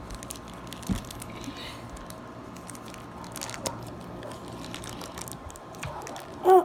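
Plastic toy packaging crinkling and tearing as it is opened by hand, in scattered small crackles, with a soft thump about a second in.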